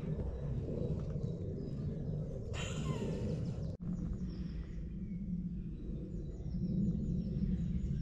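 Outdoor ambience: a steady low rumble with birds chirping faintly and high above it. A brief hiss comes about two and a half seconds in, and the sound breaks off for a moment just before four seconds.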